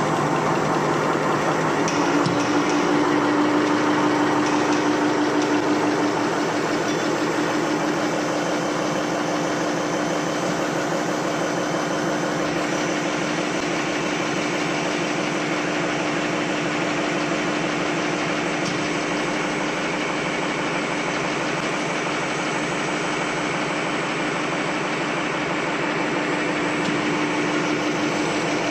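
Napkin paper folding machine running steadily, a fast, even mechanical clatter, with a steady hum coming in about two seconds in.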